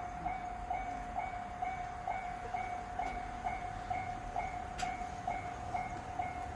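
Japanese level-crossing warning alarm ringing: an electronic clang repeating evenly about twice a second, signalling that a train is approaching.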